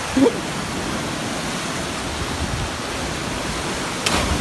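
Steady rushing water, an even hiss of surf or falling water, with a short knock near the end.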